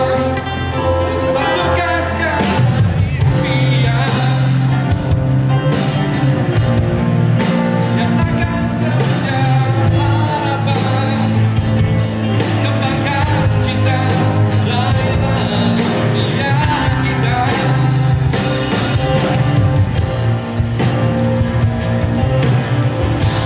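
Live band playing a rock song: drum kit with a steady beat, electric bass, electric and acoustic guitars and keyboard.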